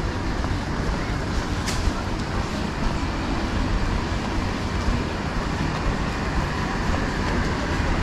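Steady outdoor street noise with a heavy low rumble and no distinct engine note, and a short sharp click about two seconds in.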